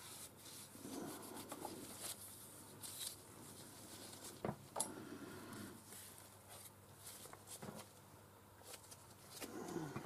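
Faint rubbing and scraping of a steel chuck plate with camlock studs as it is handled and lifted off a lathe's D1-4 camlock spindle nose, with two sharp metallic knocks near the middle.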